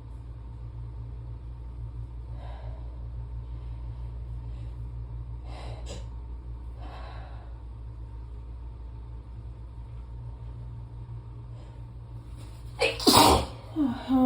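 A person's allergy sneeze, one loud sudden burst near the end, followed by a smaller catch of breath. Before it come a few faint breaths as the sneeze builds, over a steady low hum.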